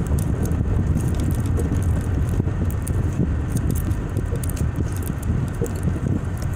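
A vehicle driving over a gravel lot, heard from inside the cab: a steady low rumble with a continuous crackle of tyres on loose gravel.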